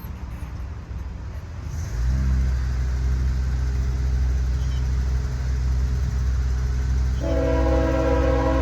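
Diesel freight locomotive. A steady low engine drone comes in about two seconds in, and near the end its air horn starts blowing a long chord of several notes.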